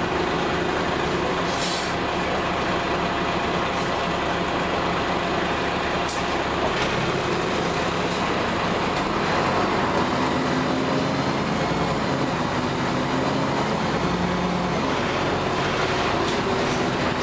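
Cabin noise inside a moving LiAZ 6213.22 articulated diesel city bus: a steady engine drone with road and body noise, its engine tones shifting in pitch about halfway through. A couple of short hisses stand out near the start.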